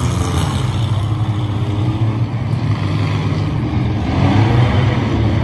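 Engines of a pack of old street-stock race cars running together as they circle the track, a steady low rumble that swells a little about four seconds in.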